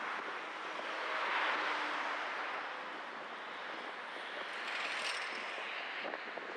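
Road noise of a car being driven on city streets: a steady rush of tyres and traffic that swells twice, about a second in and again near five seconds.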